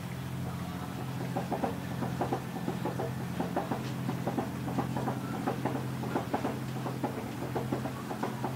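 A boat engine running with a steady low hum. Over it come rapid, irregular knocks as choppy water slaps against a hull, several a second from about a second in.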